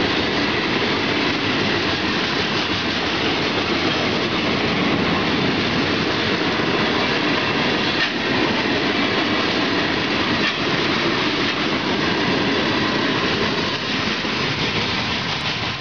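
Union Pacific work (ballast) train passing at speed: a steady rumble and clatter of wheels over the rails.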